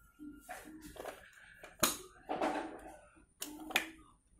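Handling clicks and rattles from a gel blaster shotgun's adjustable, length-changing stock: two sharp clicks about two seconds apart, with softer scraping and knocking between.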